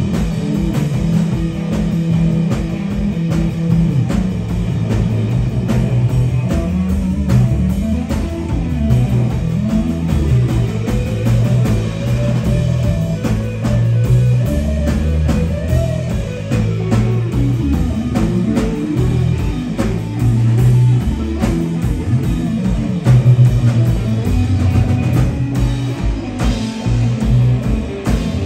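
Live rock band playing: electric guitar, bass guitar and drum kit, with a heavy low end. From about 9 to 17 seconds in, a melodic line slides and bends in pitch.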